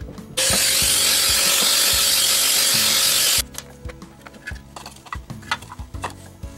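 Background music, with a loud steady hiss that starts abruptly about half a second in and cuts off about three seconds later, followed by a few sharp clicks.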